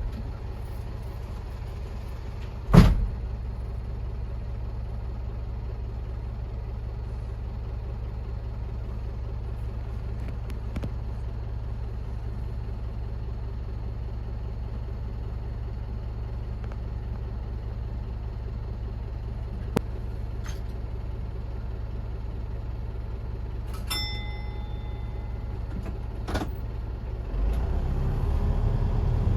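Diesel engine of a rail-and-road dual-mode vehicle (DMV) running steadily at idle after switching to train mode, with a sharp thump about three seconds in and a short chime near the end. The engine grows louder in the last couple of seconds as it picks up.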